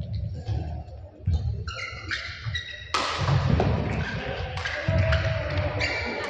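Badminton rally: sharp racket strikes on the shuttlecock, the loudest about three seconds in, with thudding footsteps and short high shoe squeaks on the court floor around two seconds in and again near the end.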